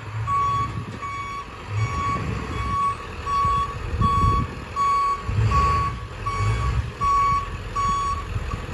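Truck's backup alarm beeping steadily, about one and a half beeps a second, over the low rumble of its engine as it reverses.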